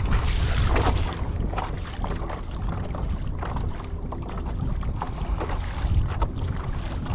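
Wind buffeting the microphone, with choppy water slapping and lapping against the hull of a Hobie Lynx kayak under way, in irregular splashes about every second.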